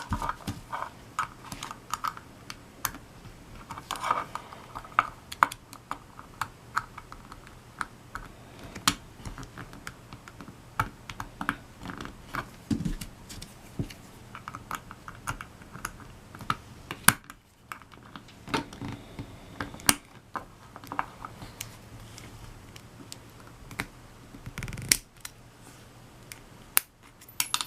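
A Garrison steel padlock worked by hand with its key and small tools: irregular small metallic clicks and taps, some with a short ring, as the lock is relocked and the plug's retaining clip is worked out.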